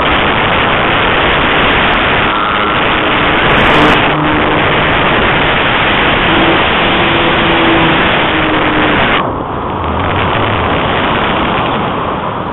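Loud rushing airflow over a keychain camera's microphone riding on a flying model glider. The upper part of the noise eases about nine seconds in.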